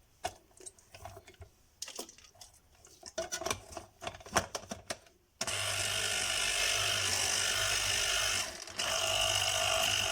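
Small clicks and knocks of handling, then about five seconds in an electric citrus juicer's motor starts and runs steadily with a low hum and a whine while squeezing lemon halves, dipping briefly once before running on.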